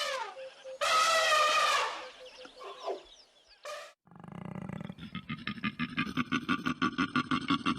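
Animal calls: two drawn-out, pitched calls in the first two seconds, then after an abrupt change a low sound followed by a fast, even run of pulses, about eight a second.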